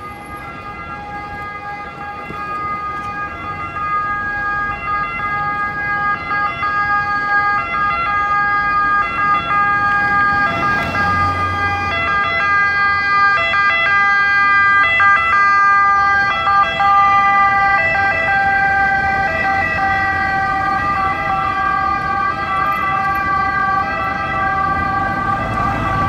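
Italian ambulance two-tone siren (bitonale) alternating between two steady pitches. It grows louder for about the first fifteen seconds as the ambulance approaches through city traffic, then eases slightly.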